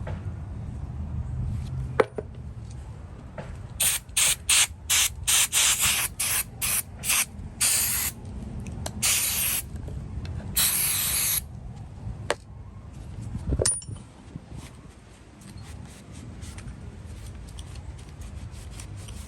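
Aerosol spray can sprayed in a quick run of short bursts, then in three longer ones, the last about a second long. A single knock comes before the spraying and another after it.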